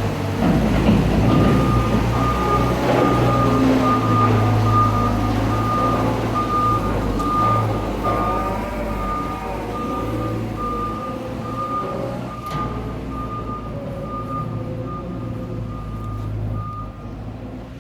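A heavy vehicle's reversing alarm beeping in an even, repeating pattern over its running diesel engine. The sound slowly gets quieter as it goes on.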